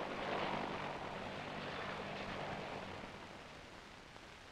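Helicopters flying over: a steady rushing engine and rotor noise with a low hum beneath it, fading away about three and a half seconds in.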